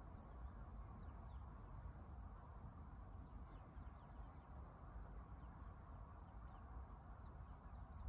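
Quiet meadow ambience, near silence: a steady low rumble and soft hiss, with faint, scattered high bird chirps.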